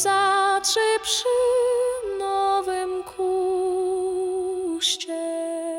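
A singing voice holding long, wordless notes with a wavering vibrato, a few breaths between phrases, over music whose low accompaniment drops away about half a second in.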